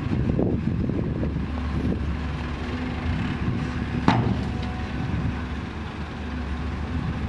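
Six-wheel dump truck's diesel engine running steadily as the tipper bed lowers, with a single metal clank about four seconds in.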